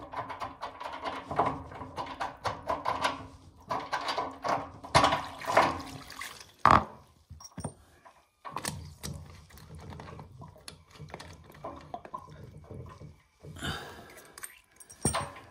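Hand tools and metal fittings being worked at a radiator valve: irregular clicks, clinks and knocks, with one louder knock about seven seconds in.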